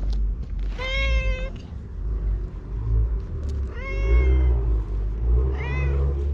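A tabby-and-white stray cat meowing three times while being stroked and patted, a talkative cat answering the touch, the last call shorter and bending up then down. A low rumble runs underneath.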